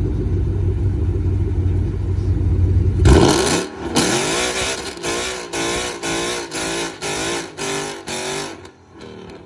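2019 Ford Mustang GT's 5.0-litre V8 idling with a low rumble, then launching hard about three seconds in, its revs sweeping up and then surging and dropping about twice a second. The uneven revving is the sound of a poor launch: the slicks spinning and the engine bogging.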